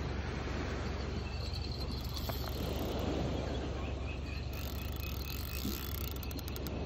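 Spinning reel being cranked as a hooked fish is played on a bent surf rod, giving a faint mechanical ticking over a steady low rumble.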